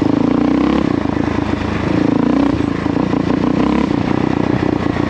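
A Kawasaki KLR650's single-cylinder four-stroke engine running while the bike is ridden, its pitch rising and falling several times as the throttle is opened and eased off.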